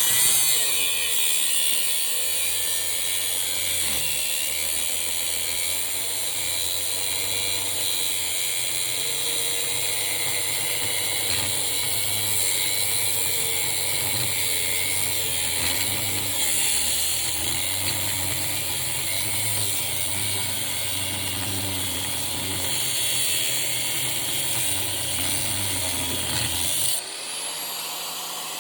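Angle grinder cutting into metal, running steadily under load with a wavering pitch. It stops abruptly near the end, leaving a quieter steady hum.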